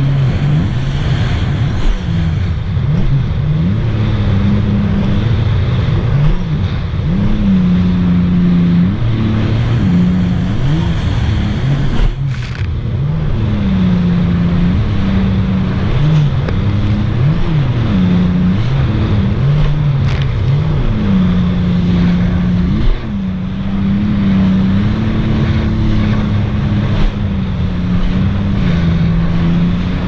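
Supercharged 2018 Sea-Doo RXT-X 300 personal watercraft running at speed on the open sea, through a Riva Racing free-flow exhaust. Its engine pitch keeps dropping and climbing again as the throttle is eased and reopened, with a brief sharp knock about halfway through.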